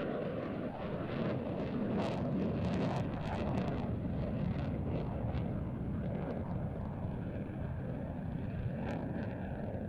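Twin General Electric F110-GE-129 turbofans of an F-15QA fighter jet flying a display overhead, giving a steady, deep rumbling noise. A scatter of sharp crackles comes between about two and four seconds in.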